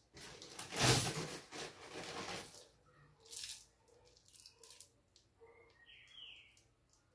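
Rustling handling noise for about two seconds, loudest about a second in, followed by a few light clicks and a brief high squeak near the end.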